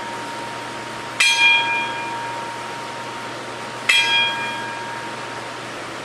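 Wrestling ring bell struck twice, about a second in and again near four seconds, each stroke ringing out and fading slowly. These are the slow, evenly spaced strokes of a ten-bell salute, the tolling given in memory of someone who has died.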